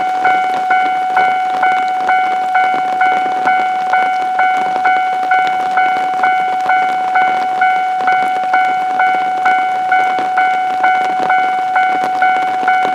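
Japanese railway level-crossing warning bell ringing steadily, its same high tone struck again and again between two and three times a second, warning that a train is approaching the crossing.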